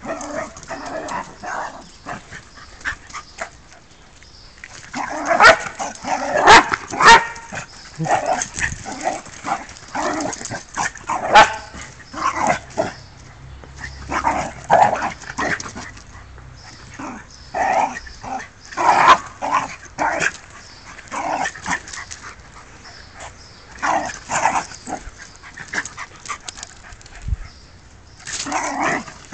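Two puppies, a golden retriever and a smaller black-and-white dog, barking in short bursts as they play-fight, with quiet spells of a few seconds between bouts.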